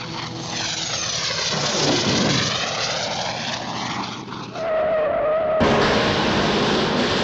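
Cartoon-style airplane landing sound effect: an aircraft engine rushing past with a sweeping pitch, then a wavering whistle-like tone. About five and a half seconds in it cuts suddenly to a louder, rougher rushing noise like a skidding touchdown.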